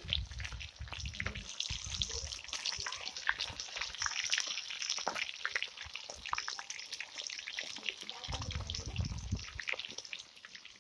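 Fish deep-frying in hot oil in an iron kadai: a steady sizzle with dense, fine crackling. A couple of low rumbles come near the start and about eight seconds in.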